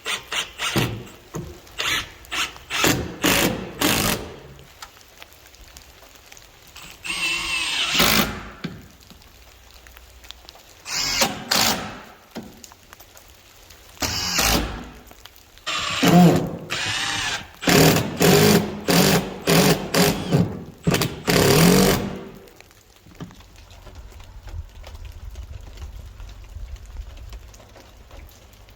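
Power drill run in many short bursts, starting and stopping in quick succession, with a longer run about seven seconds in and a fast series of bursts in the middle; a faint low hum is left in the last few seconds.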